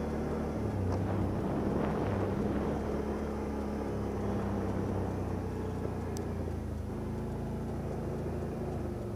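ATV (quad bike) engine running steadily while riding, its speed shifting a little as it goes, with a brief high chirp about six seconds in.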